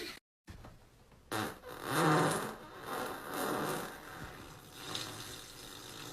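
A man farting: after a brief dead gap, a loud, drawn-out fart with a low buzzing pitch sets in about a second in, trailing off in a few weaker puffs.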